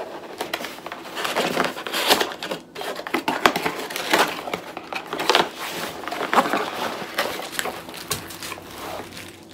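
Cardboard box being opened and handled, its flaps scraping and rustling, with plastic packaging crinkling as a part is pulled out. The sound comes as uneven rustles and crackles rather than a steady noise.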